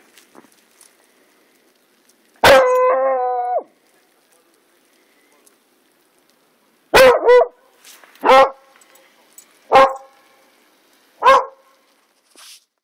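Beagle baying and barking: one long drawn-out bay about two and a half seconds in, held at a steady pitch for about a second, then five short barks spread over the second half, the first two in quick succession.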